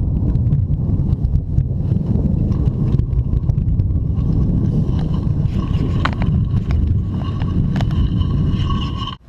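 Loud rolling thunder, a long low rumble that cuts off abruptly near the end.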